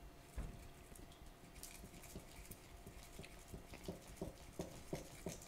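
A thin stirring stick tapping and scraping inside the crater of a model volcano while dry powders are stirred together: faint, short taps that settle into a steady beat of about three a second in the second half.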